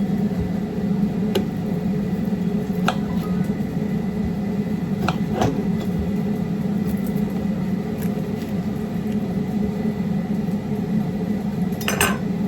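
A kitchen appliance running with a steady low hum, with a few light clicks and knocks over it.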